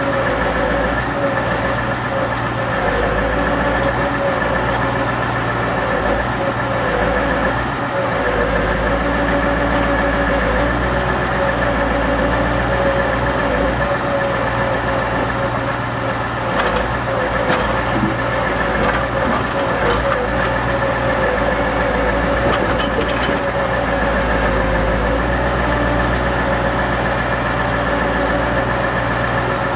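Scania R580 timber truck's V8 running steadily, driving the hydraulics of its Epsilon Palfinger M12Z loading crane, with a steady high whine over the engine note. A few sharp knocks come in the middle as logs are handled.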